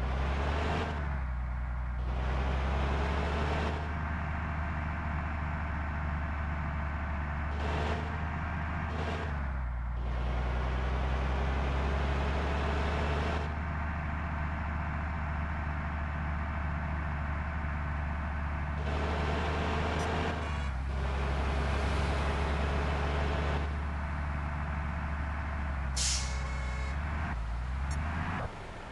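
Diesel bus engines running with a steady low rumble that swells and eases in stretches, with short air-brake hisses, the sharpest near the end.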